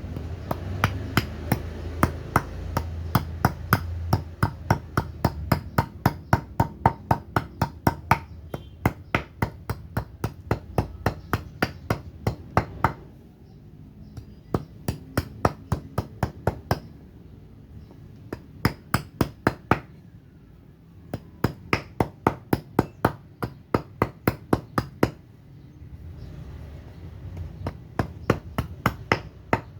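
Axe chopping into a block of surian wood, rapid strokes at about two to three a second, each a sharp knock. They come in runs, with short breaks near the middle and again about two-thirds of the way through.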